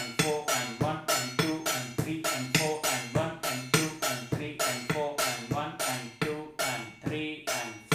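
A metal spoon striking a steel thali and a steel tumbler in a steady rhythmic groove, about three strokes a second, each stroke ringing briefly.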